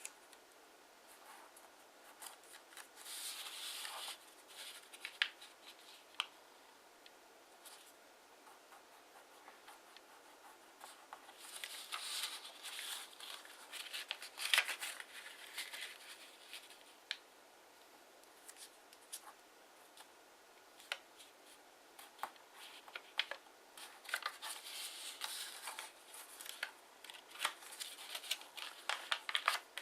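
Kraft origami paper being folded and creased by hand: stretches of crisp rustling and scraping with many small sharp ticks and taps, busiest in three spells.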